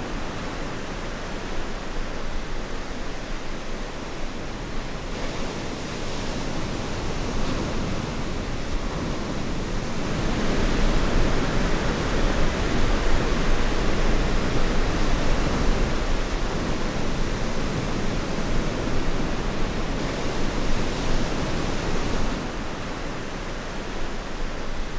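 Ocean surf: a steady rush of breaking waves and whitewater, louder from about ten seconds in until shortly before the end.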